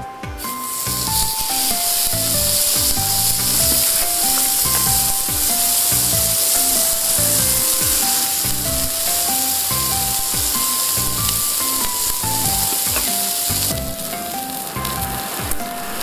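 Steak sizzling on an oiled griddle plate over campfire embers: a loud, dense sizzle from about half a second in that drops off about two seconds before the end. Background music with a steady beat and a simple melody plays throughout.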